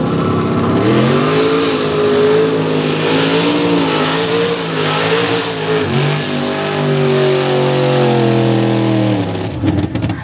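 Lifted pickup mud truck's engine revving hard at high revs as it drives through the mud. The revs dip briefly about six seconds in and fall away near the end.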